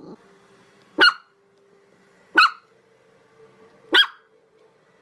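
A dog barking: three single, sharp barks spaced about a second and a half apart.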